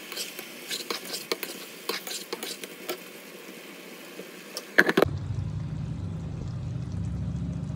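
Thick beef curry simmering uncovered in a nonstick wok, the gravy bubbling and popping in irregular crackles. Near the end a sharp clack, then a steady low hum takes over.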